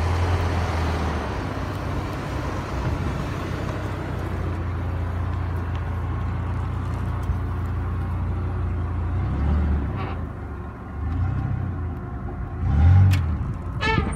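Second-generation Dodge Ram pickup's Magnum V10 running low and steady while it tows a trailer slowly over rough ground, with a few short surges of throttle in the last few seconds. Some clicks and knocks come near the end.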